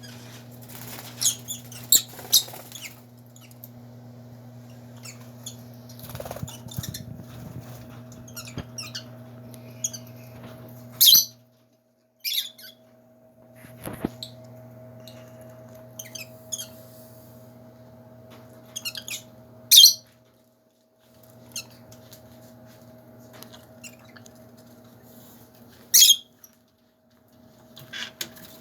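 Lovebirds giving short, high-pitched chirps and squeaks every few seconds, some in quick clusters, over a steady low hum.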